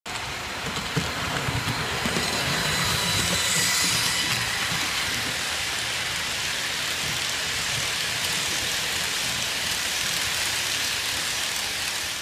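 Model freight train with wagons carrying lorries rolling past close by: a steady rumble and rattle of small wheels on the track with light clicking, and a thin high whine from the locomotive's motor about three to four seconds in.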